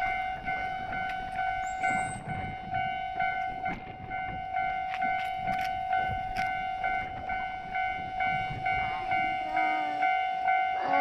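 Japanese level-crossing warning alarm ringing steadily, a repeated two-tone electronic clang with an even beat of a little over one stroke a second. A wavering voice joins near the end.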